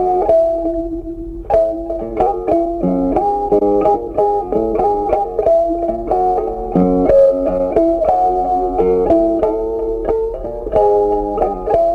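Background music: a plucked-string tune of quick, evenly paced notes.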